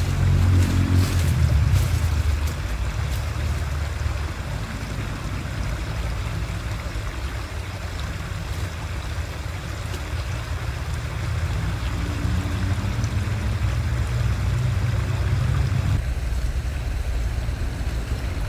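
Wind buffeting the microphone as a low rumble that swells and eases, over the steady rush of a small river flowing through rocky shallows.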